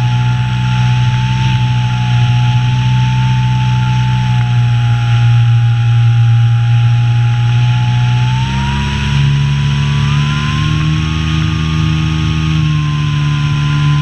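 Electric motor and propeller of an Apprentice S radio-controlled model plane, heard from its onboard camera: a steady drone with a whine above it. Both step up in pitch about eight seconds in as the motor speeds up.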